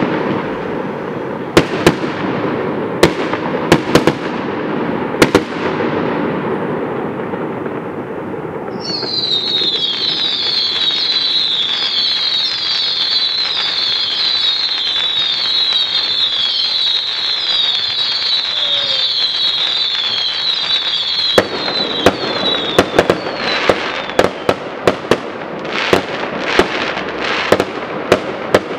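Aerial fireworks display. Shells burst with sharp bangs over a crackling haze, then for about thirteen seconds a shrill chorus of whistles keeps falling in pitch over and over. From near the end of the whistling, rapid volleys of bangs and crackles take over.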